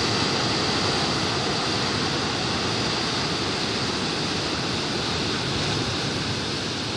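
Sea waves breaking onto a sandy beach and washing against rocks: a steady rush of surf and foaming white water.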